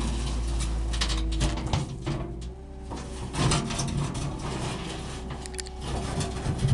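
Zettelmeyer 602 wheel loader's diesel engine running under load as the bucket digs and scrapes through soil, with irregular clanks and scraping throughout.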